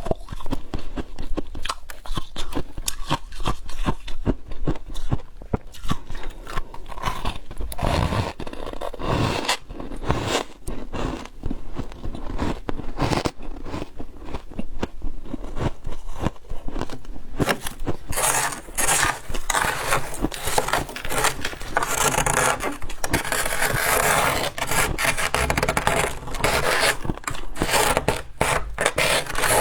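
Chunks of humidifier frost being bitten and chewed: a continuous run of sharp, crackly crunches that grows busier and brighter about two-thirds of the way through.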